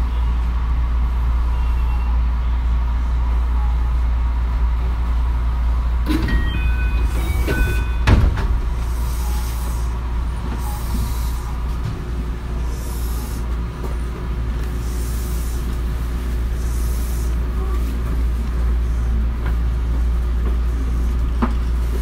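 Running noise heard inside a 221 series electric train: a steady low rumble from the wheels and motors. About six seconds in come a few short high ringing tones and a sharp clunk, the loudest moment.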